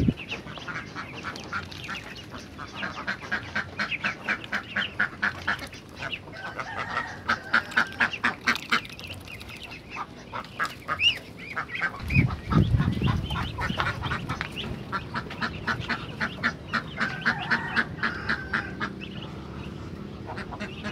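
A flock of ducks quacking in fast runs of short, repeated calls, with a brief low rumble about twelve seconds in.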